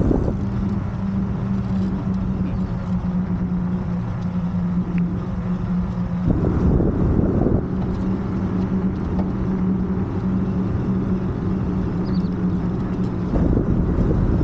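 Moped engine running at a steady speed, a constant low hum. A burst of rushing noise covers it briefly about halfway through and again near the end.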